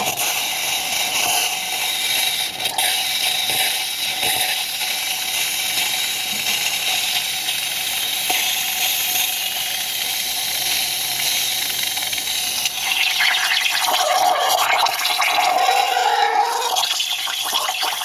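Rancilio Silvia's steam wand hissing into a stainless milk pitcher, steaming and frothing the milk with a steady gurgling hiss. About 13 seconds in, it grows louder and a wavering higher tone comes in.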